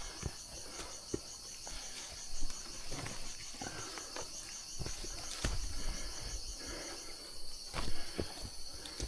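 Rainforest insect chorus, a steady pulsing high-pitched buzz, with scattered thuds and rustles close by, the loudest about two and a half seconds in and near the end.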